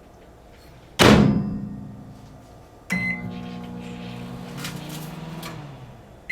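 Microwave oven door shut with a thump, a single keypad beep about two seconds later, then the oven running with a steady low hum that dies away just before the end.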